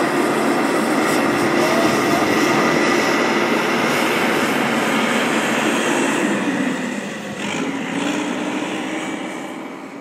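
Backhoe loader's diesel engine running steadily as the machine drives across the site. About seven seconds in its pitch and level drop, then pick up again, before the sound fades out at the end.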